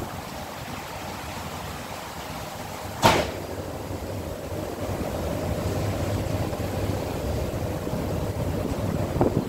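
Steady rumble and hum of a ship under way, with one sharp knock about three seconds in. A faint steady hum joins the rumble from about four seconds in.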